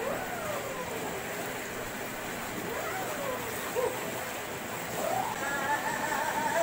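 Water splashing and churning in an inflatable pool as people move about in it, with a hose spraying into the water. Voices call out now and then, with a longer call near the end.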